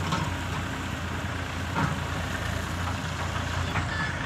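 Diesel engines of a Hyundai crawler excavator and a dump truck running steadily at a distance, under a steady hiss, with two faint knocks: one at the start and one just under two seconds in.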